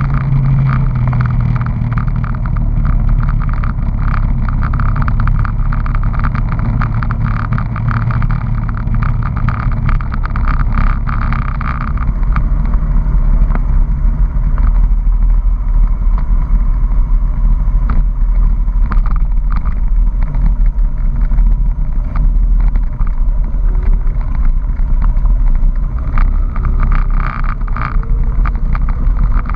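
Honda PC800 Pacific Coast's V-twin engine running on the move, with wind rush over the windscreen. The higher rush of wind eases about twelve seconds in as the bike slows.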